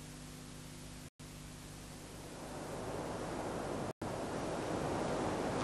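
Steady videotape hiss with a low hum under it. About two seconds in, a louder rushing noise builds and keeps rising toward the end. The sound drops out completely twice, briefly.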